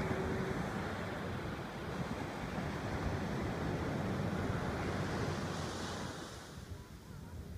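Ocean surf and wind on the microphone, a steady rushing noise that eases near the end.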